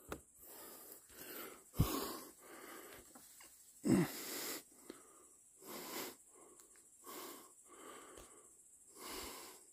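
A man breathing hard in and out close to the microphone, a soft breath about every second: he is out of breath and very tired.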